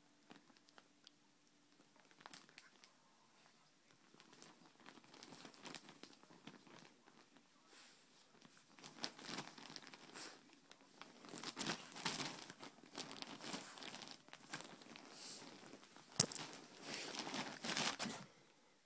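Rustling and scraping of bedding close to the microphone, in irregular scratchy bursts that grow louder and busier about halfway through, with one sharp click near the end.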